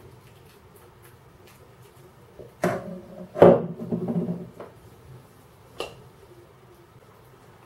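A metal-rimmed glass saucepan lid is set down on a kitchen worktop. Two clattering knocks are followed by about a second of rattling and ringing as the lid settles, and a single light click comes a couple of seconds later.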